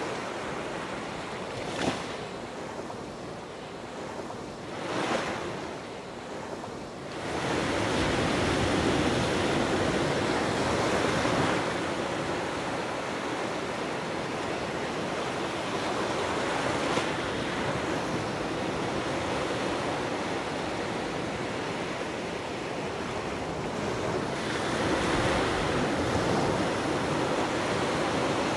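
Gulf of Mexico surf breaking and washing up the beach in a continuous rush, with quieter lulls and short surges in the first few seconds before the wash grows louder and steadier.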